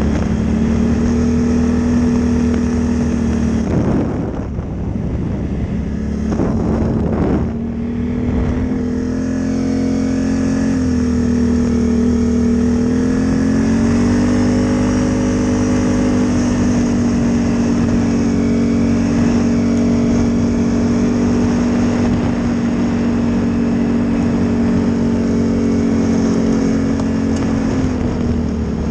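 Can-Am ATV's V-twin engine running under throttle at a steady trail-riding pace. It eases off briefly about four and seven seconds in, then picks back up and holds a steady pitch.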